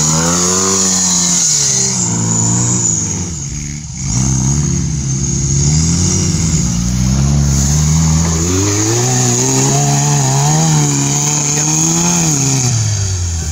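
Off-road buggy engine revving hard, up and down again and again, as the buggy labours through deep mud.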